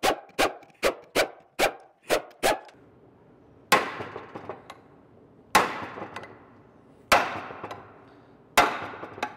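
Hammer blows on a pry bar wedged into the seam of a Toyota Tacoma front differential case, forcing the two case halves apart: four heavy strikes about one and a half seconds apart, each ringing on. Before them, a quick run of about seven sharp knocks, roughly two a second.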